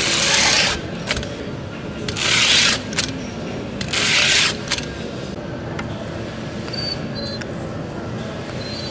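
Three rubbing strokes of a hand tool pressed over protective film on wood veneer, about a second and a half apart, over a steady workshop hum. After that only faint clicks and small high squeaks.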